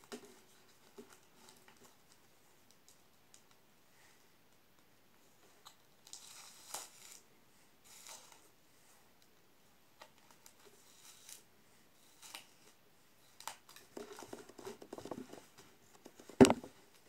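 Folded paper strips of a woven paper panel rustling and crinkling in short, scattered bursts as it is handled and stitched with needle and thread, with one sharp click near the end.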